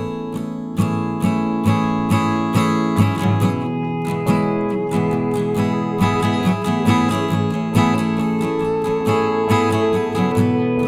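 Background music led by plucked, strummed acoustic guitar, with a steady beat of about two strokes a second.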